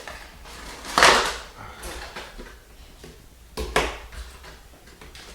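Rustling and knocking from packaging and the charging dock's divider pieces being handled and taken out of the box, with a loud rustle about a second in and another sharp burst just before four seconds.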